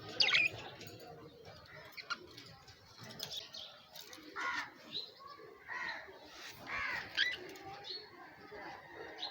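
Birds chirping: scattered short, sharp calls, the loudest and highest one about a third of a second in, with a cluster of calls in the second half.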